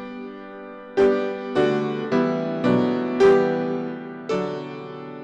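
Piano playing slow offertory music: full chords struck about every half second to a second, each ringing on and fading before the next.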